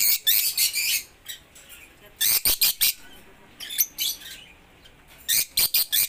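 Lovebirds chirping in four bursts of rapid, shrill calls with short pauses between them.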